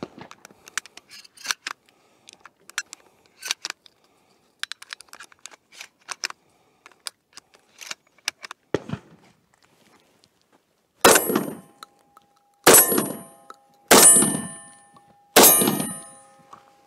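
Small clicks and rattles as 12-gauge shells are loaded into a Remington V3 TAC-13 semi-automatic shotgun. Then four shots about a second and a half apart: two buckshot loads followed by two light target loads. A faint steady ring lingers after the shots.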